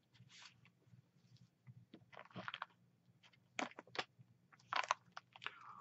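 Faint scattered rustles and clicks, in a few short groups about two, three and a half and five seconds in, over a low steady room hum.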